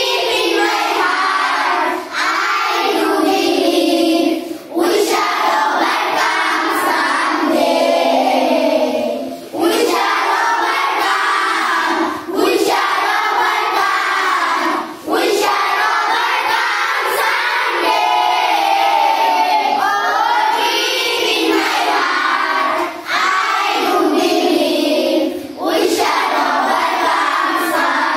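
A class of young schoolchildren singing together in unison, in long phrases with brief pauses between them.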